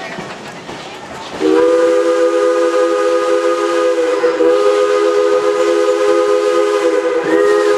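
Steam locomotive chime whistle blowing one long blast, several notes sounding together as a steady chord. It starts abruptly about a second and a half in over the rolling noise of the moving train and is held to the end.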